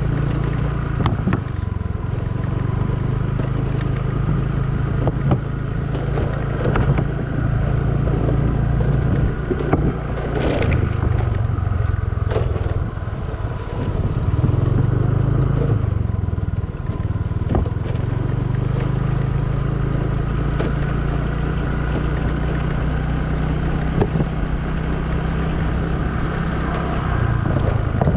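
Small motor scooter engine running at low riding speed, its hum rising and falling in pitch as the throttle changes, with occasional short clicks and knocks.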